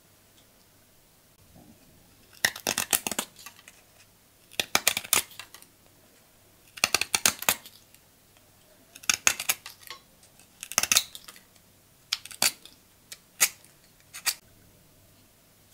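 Blade of an old Soviet folding pocket knife whittling a thin wooden stick: crisp shaving cuts in short bunches about every two seconds. Near the end there are single quicker strokes.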